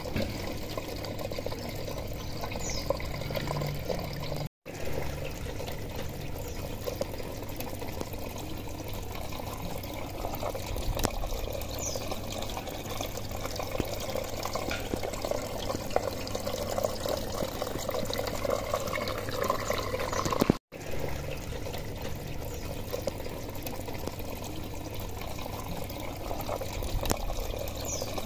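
Water running and trickling steadily through a hydroponic growing system, circulated by its pump. The sound cuts out for an instant twice, about four and a half seconds and about twenty seconds in.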